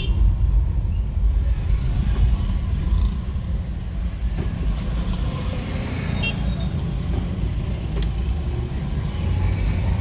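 Steady low rumble of road traffic, with cars and motorcycles running close by, heard from a vehicle moving slowly through a congested street.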